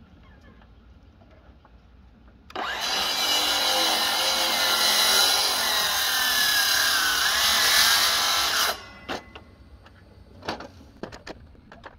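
Sliding compound miter saw running and cutting through a pressure-treated 4x4 post for about six seconds, starting a couple of seconds in and stopping abruptly. A few light knocks follow.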